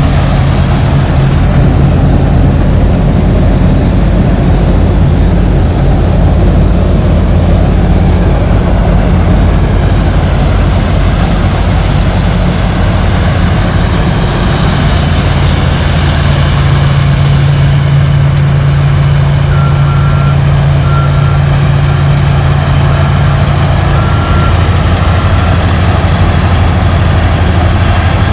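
Diesel engine of harvest machinery running steadily under load, heard close up. About two-thirds of the way through, a faint run of short beeps sounds over it.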